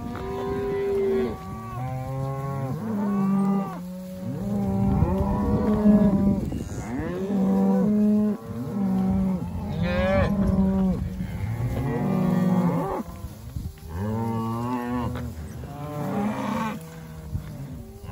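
A herd of cattle, cows with calves, mooing: many long calls overlapping and following one after another.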